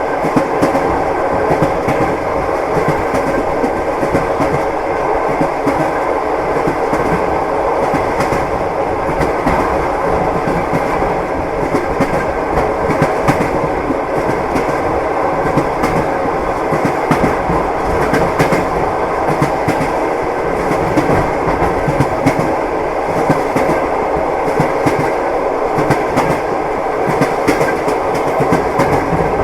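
Train wheels knocking over rail joints: a steady rumble with frequent clicks and knocks from a moving train.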